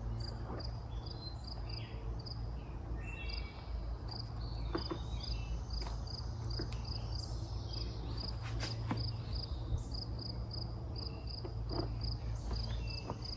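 Insect chirping steadily at about two chirps a second, over a constant low hum, with a few faint clicks and taps.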